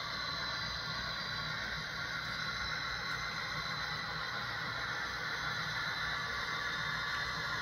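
Model Santa Fe FP45 diesel locomotive running along the layout's track with passenger cars: a steady whirring of its motor, gears and wheels on the rails.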